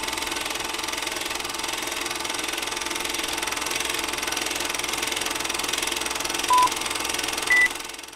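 Film projector sound effect, a steady fast clatter running under a film-leader countdown. Two short beeps come near the end, about a second apart, the second higher in pitch, and then the clatter fades out.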